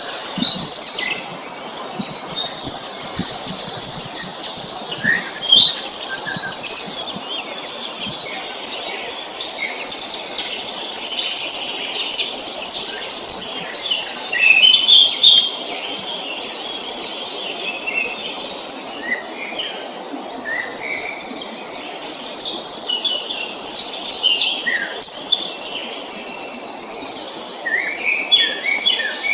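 Several songbirds singing and calling at once, a dense mix of short chirps, trills and whistles, over a steady background hiss.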